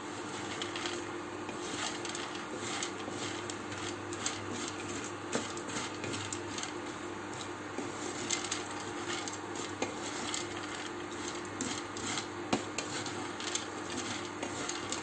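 Wooden spatula stirring and scraping whole-grain fusilli as it fries in a nonstick frying pan: repeated scrapes and light clicks of pasta against the pan, over a steady hum.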